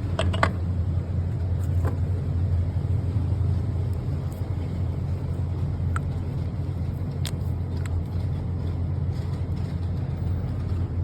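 GM engine idling with a steady low rumble and a few scattered sharp clicks; the engine is said to have bad lifters.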